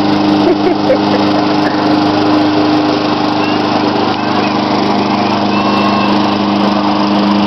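Walk-behind gasoline lawn mower running steadily at constant engine speed while being pushed across grass.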